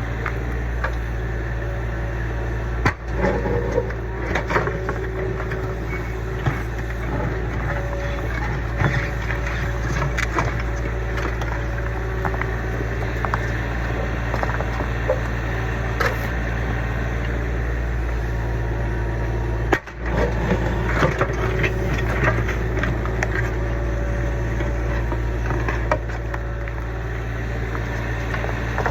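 Kubota U25 mini excavator's diesel engine running steadily while digging, with scattered clicks, knocks and scrapes of the bucket working through dirt and old footing.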